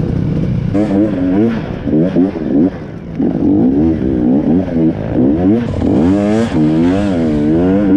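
Off-road motorcycle engine revving up and down over and over as the throttle is opened and shut, pitch rising and falling several times in quick succession, with a longer, higher rev about six seconds in.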